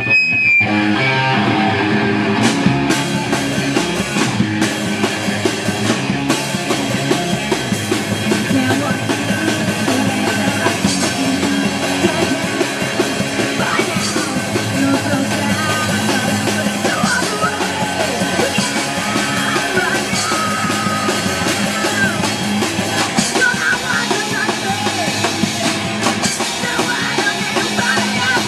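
Loud rock music with a driving drum kit, electric guitar and singing.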